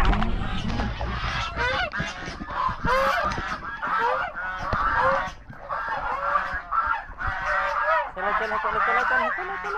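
A flock of white domestic waterfowl calling over and over as they crowd out of their pen, many short calls overlapping. In the first second or so a low rumble and a few knocks sound under the calls.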